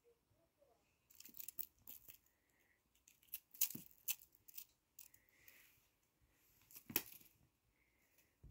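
Scratchy rustling and scuffling as a kitten bats at and grabs a fluffy wand toy swept across a carpet, in several short bursts, the loudest near the end.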